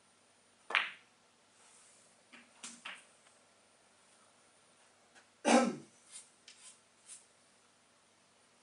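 Snooker balls clicking: a sharp cue strike on the cue ball, then a few softer ball contacts, then a louder knock with a short falling rattle a little past halfway, followed by several light clicks.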